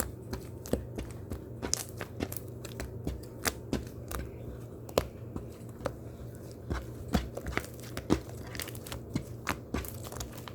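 Foam crackling and popping: many small irregular clicks and crackles, over a steady low hum.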